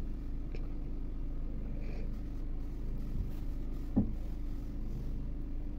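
Steady low room hum with a few faint soft taps as a plastic jar lid is pressed through rolled dough onto a wooden board. The clearest tap comes about four seconds in.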